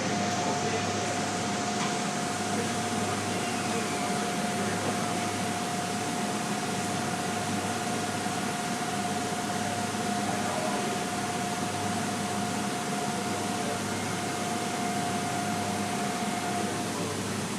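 Steady hum and noise of running industrial machinery, with a constant high whine that cuts off near the end.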